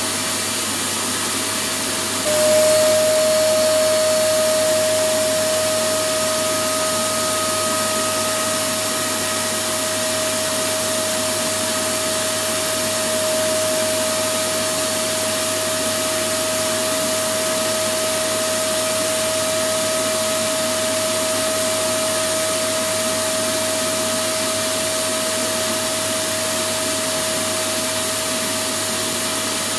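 Vacuum cleaner running continuously: an even rushing noise with a steady whine. About two seconds in, the whine gets stronger and drops slightly in pitch as the sound grows louder, then eases back over the next few seconds.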